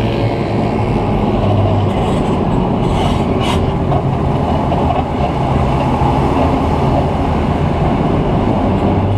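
Heavy farm machinery running steadily, a loud mechanical din with a low engine hum, and a brief clatter about three seconds in.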